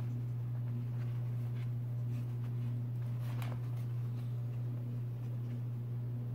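A steady low electrical hum, with faint scattered ticks and taps as a puppy moves about on a plastic floor mat in its pen.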